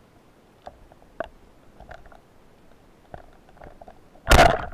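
Underwater sound picked up by a diver's camera: a low hiss with a few faint, sharp clicks, then about four seconds in a loud rushing, scraping noise that starts suddenly.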